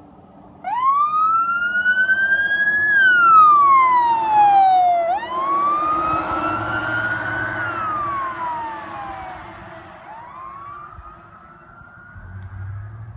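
Fire brush truck's siren in wail mode, starting suddenly about a second in and slowly rising and falling in pitch: up, down, up, down, then up again. It is loudest in the first few seconds and fades as the truck passes, over the noise of the road.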